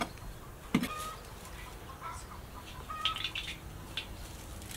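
Chickens clucking with short calls, and a single knock about a second in.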